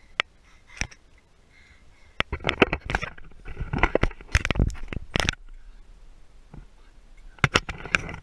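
Handling noise from a handheld camera being swung around: scraping and rubbing with sharp knocks, in two bursts of about three seconds and one second, the second near the end.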